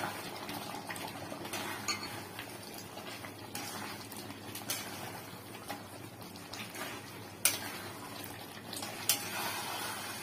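Metal spatula stirring and turning chicken pieces in thick masala in a metal kadai, scraping and clinking against the pan over a steady sizzle of the frying. A few sharper clinks stand out, the loudest about seven and a half seconds in and again near nine seconds.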